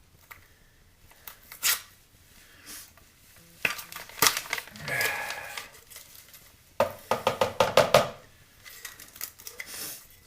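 Kitchen handling sounds: knocks and clatters of containers and utensils with some crinkling, in bunches about two seconds in, around four to five seconds, and a quick run of clicks around seven to eight seconds.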